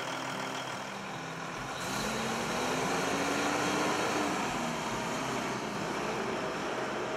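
Cummins N14 inline-six diesel in a Freightliner tractor truck idling, then revved once about two seconds in, the pitch rising steadily before the revs drop back a little past the middle.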